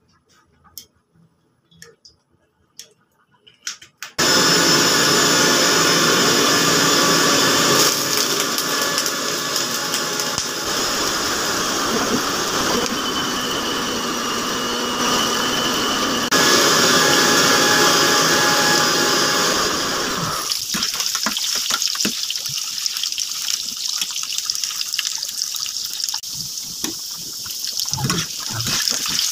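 Potato pieces frying in hot oil in a kadai: a loud, steady sizzle that starts abruptly about four seconds in. In the last third a metal spatula scrapes and stirs against the pan.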